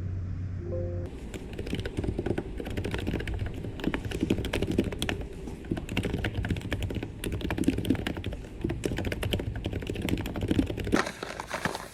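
Typing on a computer keyboard: a quick, uneven run of key clicks that starts about a second in and stops shortly before the end.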